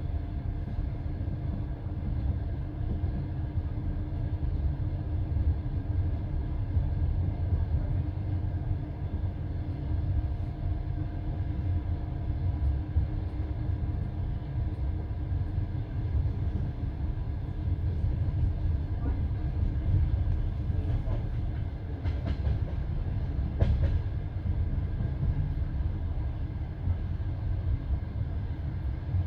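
Passenger train carriage running along the line, heard from inside: a steady low rumble of wheels on rails, with a couple of faint clicks about three-quarters of the way through.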